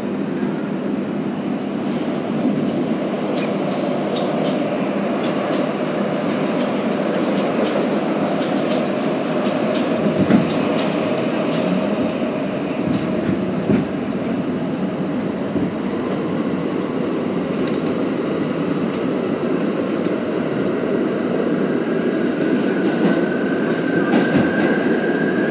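Inside a moving R32 subway car: the steady rumble of wheels on rail with clicks of rail joints, one louder clunk about ten seconds in, and a motor whine that rises in pitch over the last third as the train gathers speed into the tunnel.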